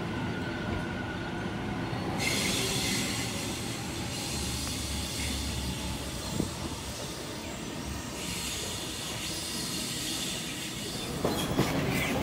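Electric passenger trains moving past on the rails: steady running noise with a high hiss and wheel squeal, then a quick run of wheel clicks over rail joints near the end.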